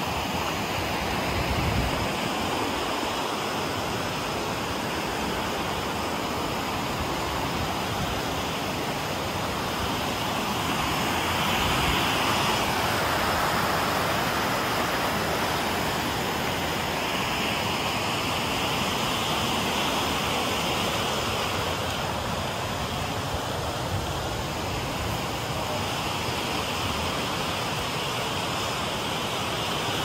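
Steady rush of a mountain waterfall, with turbulent water pouring and splashing.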